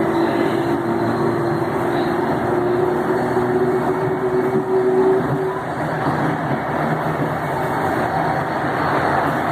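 Electric multiple unit TUE 1726 running along the line, with a steady rumble and rail noise. A growling motor tone steps up slightly about two and a half seconds in and fades out a little after five seconds.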